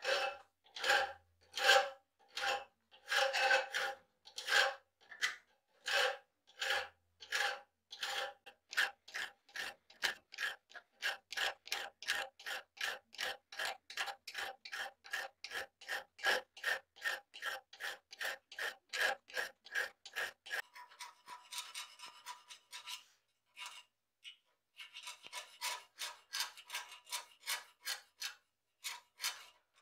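Hand file rasping back and forth across the rusted steel edge of an old sword blade, in even strokes, slower at first and then about two to three a second. After about twenty seconds there are a few seconds of quicker, almost continuous rasping before the separate strokes return.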